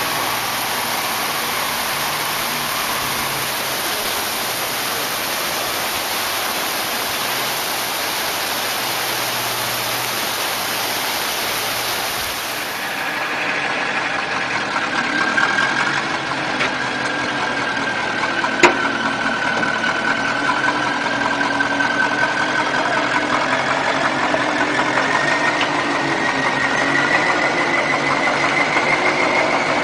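Rushing floodwater hissing steadily. Then a heavy logging truck's diesel engine labours as the loaded truck churns through deep mud, with a whine that rises in pitch near the end and one sharp click.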